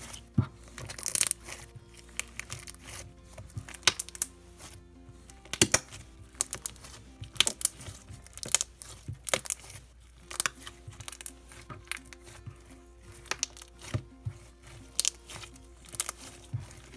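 Slime being squished and stretched, giving irregular crackling clicks and pops, over soft background music.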